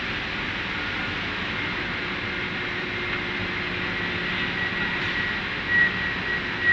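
Aluminium billet induction furnace running: a steady machine hiss with a thin high whine that grows plainer in the second half.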